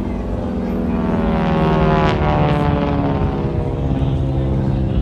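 An AT-6 Texan's Pratt & Whitney R-1340 radial engine and propeller, loud, passing by in flight; the engine note drops in pitch about two seconds in.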